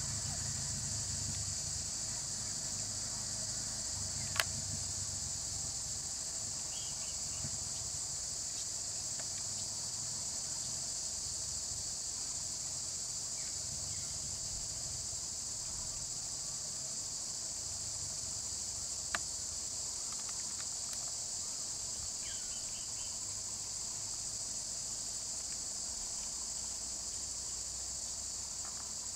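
A steady, high-pitched chorus of insects, with a low rumble underneath. Two sharp clicks come a few seconds in and again about two-thirds of the way through.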